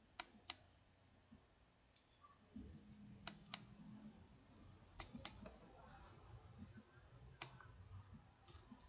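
Computer mouse clicking as a web form's dropdown menu is opened and scrolled: about eight short, sharp clicks, several in quick pairs a few seconds apart, against a near-silent room.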